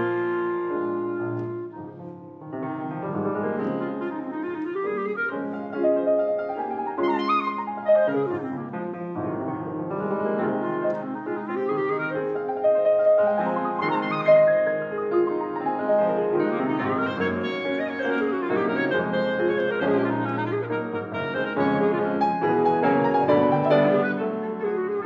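Clarinet and grand piano playing a classical chamber piece together, the music briefly dropping quieter about two seconds in before both carry on.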